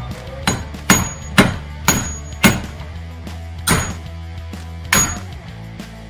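Hammer blows driving a worn bearing out of a fruit-picking machine's bin table: about seven sharp strikes in the first five seconds, coming slower toward the end, several with a short metallic ring.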